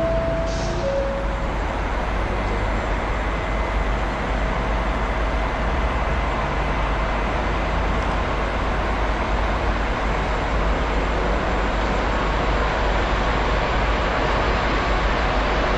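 Class 66 diesel locomotive's two-stroke V12 engine running as it approaches hauling an intermodal container train, a steady low rumble that grows slightly louder near the end. Two short tones, a higher then a lower one, sound in the first second and a half.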